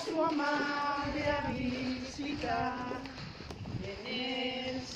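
A group of women's voices singing a hymn to the Virgin together, holding long notes.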